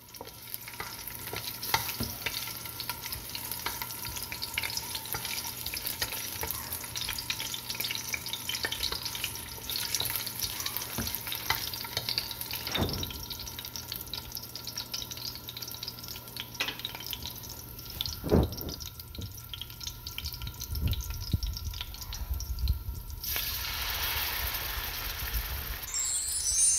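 Onion pieces sizzling and crackling in hot avocado oil in an aluminum pot, stirred with a wooden spatula, with two sharp knocks partway through. Near the end the sizzle turns louder and hissier as blended red chile sauce is ladled into the hot oil.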